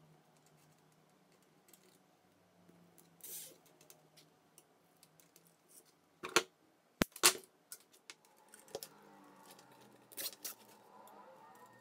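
Plastic zip ties being fastened around a wire: scattered faint clicks and rustle of handling, with a few sharp clicks about six to seven seconds in.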